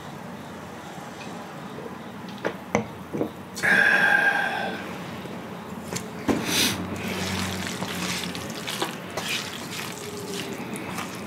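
Close-miked eating sounds: a drink of cola, a few small clicks, and a short loud vocal sound about four seconds in. From about six seconds, chopsticks stir and lift sauced jjapaghetti noodles in a metal pan with a wet, clicking sound.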